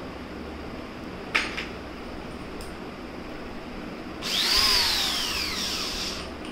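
Handheld cordless drill run briefly with no load: the motor whines up to speed and then winds down over about two seconds. A sharp click comes a few seconds before it.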